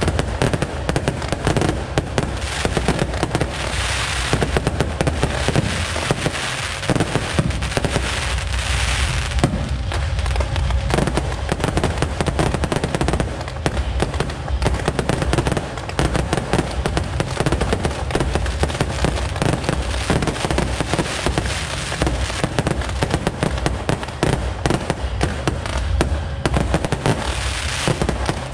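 Fireworks display firing without a break: a dense run of aerial shell bursts and sharp pops, with the fizz and crackle of glittering stars, loud throughout.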